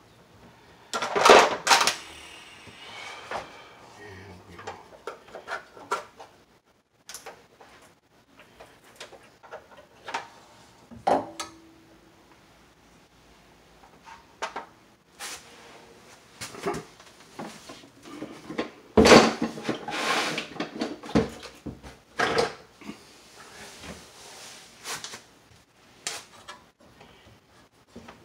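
Irregular metallic clinks and clatter of a sheet-metal water heater junction cover plate and hand tools being handled, loudest about a second in and again around nineteen seconds in.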